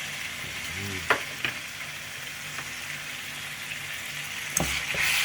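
Saltfish frying in hot oil with sautéed spices in a pot: a steady sizzle, with a few sharp knocks about a second in. Near the end a knock and a louder swell of sizzling.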